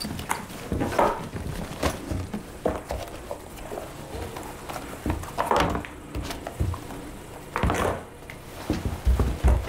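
Rummaging through a suitcase and clothes: cloth rustling, with irregular small knocks and clatters of things handled on a wooden table.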